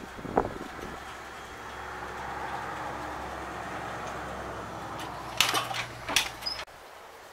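Small solar-powered water pumps humming steadily while they move water between the jugs, with a few sharp knocks and clatters from the tilting metal frame near the end. The hum cuts off abruptly just before the end.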